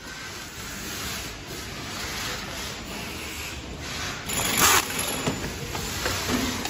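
Steady workshop background noise; about four seconds in, a power screwdriver runs briefly, driving a screw into a chainsaw's plastic housing. A few light knocks follow.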